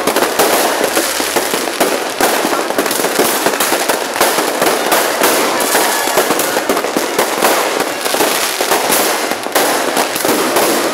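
Fireworks going off in a dense barrage: many sharp bangs and crackles overlapping without a break.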